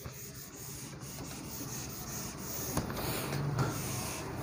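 Handwriting strokes, a writing tool rubbing and scratching steadily across a writing surface, with a couple of sharper strokes about three seconds in.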